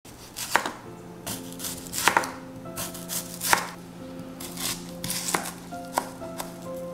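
A chef's knife slicing through a peeled onion and striking the cutting board: about a dozen sharp, irregular chops, roughly two a second.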